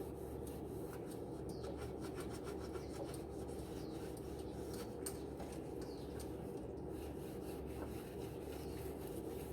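Scrubbing grease off barbecue grill parts: a continuous run of quick, scratchy rubbing strokes.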